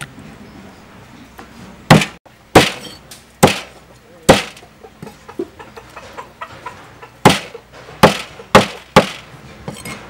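Meat cleaver chopping raw chicken on a thick round wooden chopping board: about eight heavy chops, four in a row about two seconds in and four more near the end, with a few lighter taps between.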